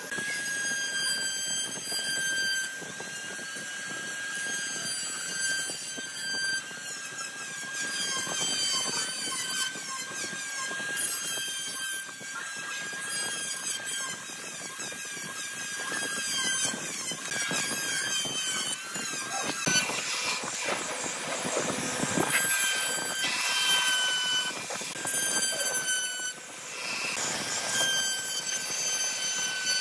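Makita electric rotary tool running at high speed with a steady high-pitched whine, its small bit grinding grooves into wood with a scratchy rasp. The whine wavers in pitch as the bit is pressed into the cut.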